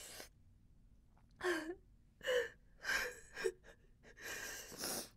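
A woman gasping in short, sharp breaths, some with a brief whimper, as she suffers the mouth burn of the extremely hot Paqui One Chip Challenge chip.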